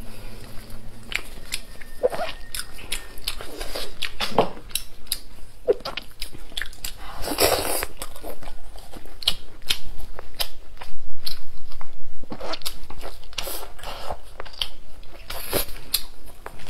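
Close-miked eating: biting, tearing at and chewing braised meat on the bone, with a dense run of short crunching and crackling clicks, loudest a little past the middle.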